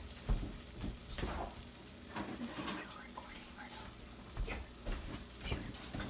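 Wooden spatula scraping and stirring a butter-and-flour roux in a saucepan on a hot burner, in irregular strokes over a light sizzle as the roux cooks.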